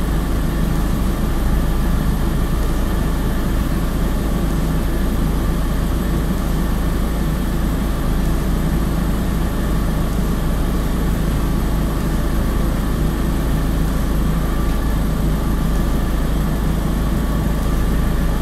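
Audi TT 1.8T turbocharged four-cylinder idling steadily, warming up to operating temperature with its cooling system freshly refilled after a radiator replacement.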